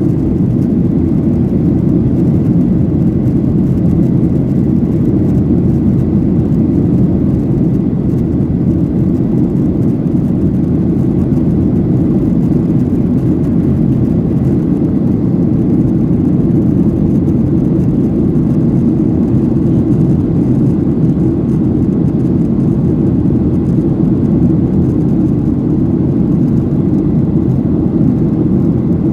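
Steady low rumble inside the cabin of a Boeing 737-800, the noise of its CFM56 turbofan engines, unchanging throughout.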